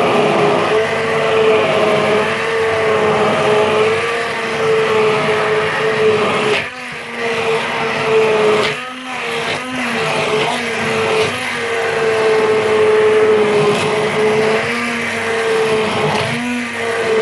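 Hand-held immersion blender running with its blade in a steel pot, churning a liquid pear-and-egg flan mixture. The motor's steady whine wavers in pitch and drops out briefly a few times, around seven and nine seconds in and again near the end.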